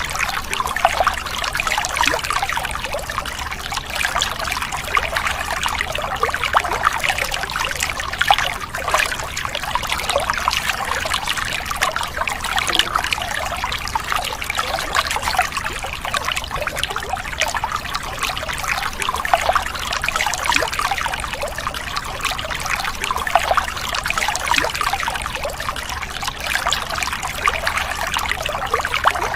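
Steady trickling and splashing of running water, with no pauses.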